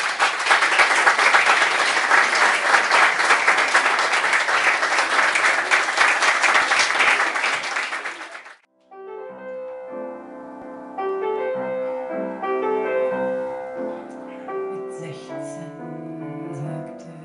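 Audience applauding, cutting off suddenly about eight and a half seconds in; a piano then starts playing, a slow run of notes and chords.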